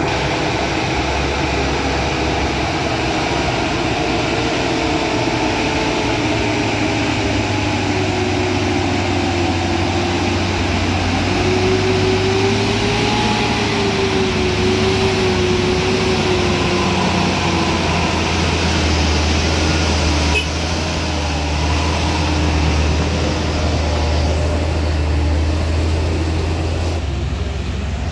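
Heavy vehicle engines running steadily, the engine note drifting slowly lower and wavering as engine speed changes, over a constant low hum.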